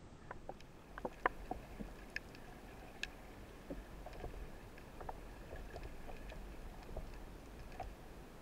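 Underwater ambience: scattered faint clicks and crackles, a few sharper ones about a second in, over a steady low rumble.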